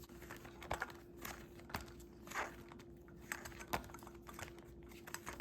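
Paper album pages and sticker sheets being handled and turned: scattered soft rustles and light taps, with a faint steady hum underneath.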